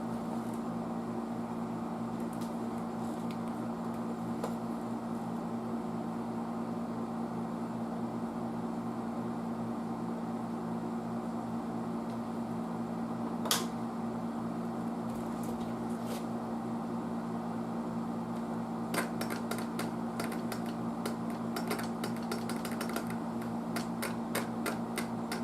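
Steady low hum with a few fixed tones. One sharp click comes about halfway through, and a run of light clicks and taps comes near the end.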